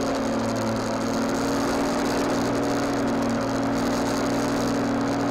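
Lawnmower running steadily while cutting grass, picked up close by a camera mounted on the mower itself: an even hum that holds the same pitch throughout.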